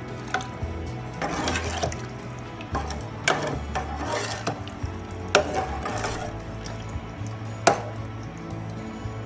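Steel ladle stirring thin, watery curry gravy in a metal pot, with swishing and sloshing and about four sharp clinks of the ladle against the pot. Background music with a steady low bass line runs underneath.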